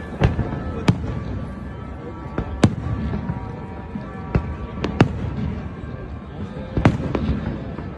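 Aerial firework shells bursting: about eight sharp bangs at irregular intervals, a couple of them close together around the middle. Music plays steadily underneath.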